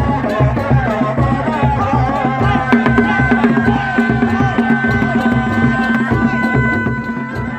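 Sundanese reak ensemble music: dogdog drums beating a fast, dense rhythm under a high, wavering melody line that holds one long note through the middle.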